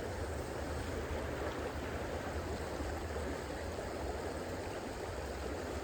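Mountain trout stream running, a steady even rush of water.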